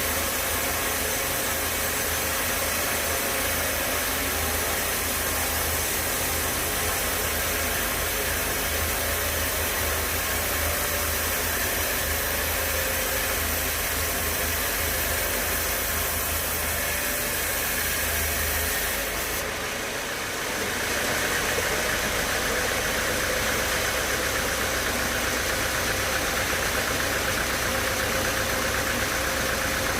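Sawmill machinery running steadily. About two-thirds of the way through, the low hum drops away and a higher-pitched whirring comes up and holds.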